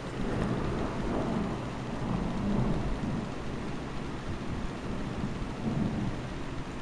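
Heavy rain falling steadily, with rolling thunder rumbling low in waves that swell and fade several times.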